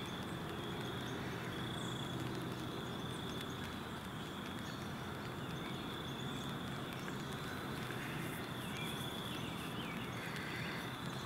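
Quiet woodland ambience: a steady hiss with a thin, continuous high-pitched drone running under it.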